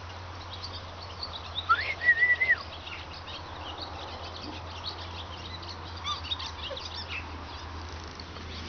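A four-week-old Siberian husky puppy gives one high-pitched squeal about two seconds in, rising, holding and then dropping away, while small birds chirp faintly throughout.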